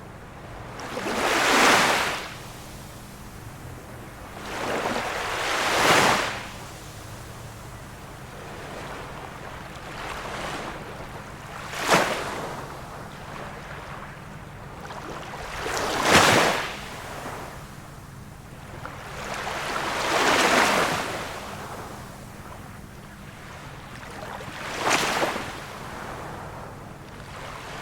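Small waves of a calm sea washing onto the shore, a surge about every four seconds, some swelling and falling over a second or two, others a short sharp slap.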